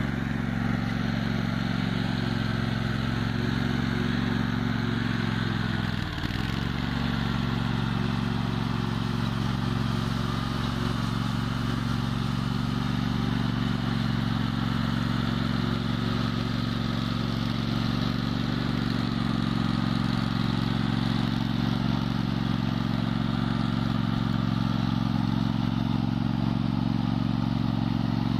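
Toro 6x4 off-road lawn mower's engine running steadily at a constant speed, with a brief drop in pitch about six seconds in.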